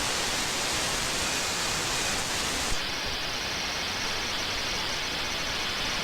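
Shortwave radio static: steady hiss from an RTL-SDR receiver demodulating an empty or weak shortwave frequency. About three seconds in, the highest part of the hiss cuts off sharply, leaving a duller hiss.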